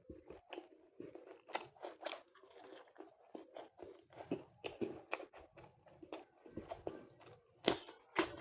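Close-up eating sounds: a person chewing chicken curry and luchi, with many small wet smacks and crunchy clicks at an uneven pace.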